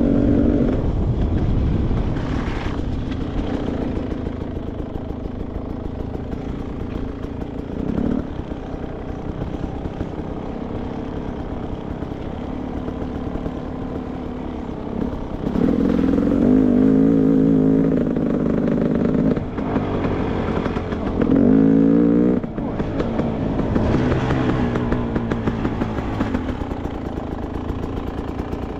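Beta 300 RR two-stroke single-cylinder dirt bike engine running under varying throttle, with two louder revving surges about halfway through, the second one short, over the clatter of the bike on rough ground.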